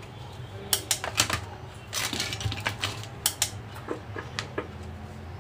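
Handheld megaphone's loudspeaker crackling and popping irregularly over a low steady hum as it is switched on: the crackle fault, which the repairer says is often caused by the volume control.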